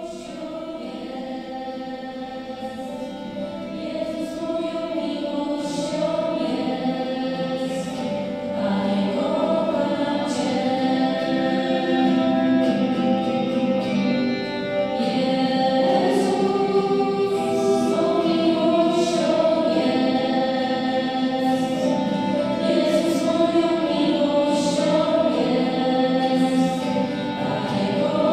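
A choir singing slow sacred music in long held notes, swelling in loudness over the first several seconds and then holding steady.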